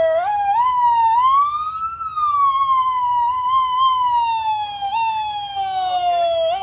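Emergency vehicle siren wailing: the pitch climbs for about two seconds, then slowly falls, with short upward bumps near the end.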